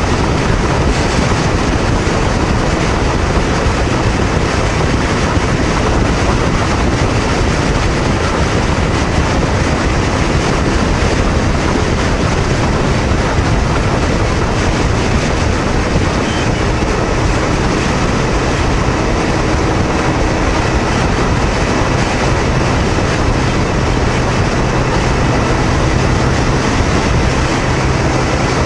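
Honda VTR250's V-twin engine running at highway cruising speed, about 110–115 km/h, under a steady loud rush of wind and road noise.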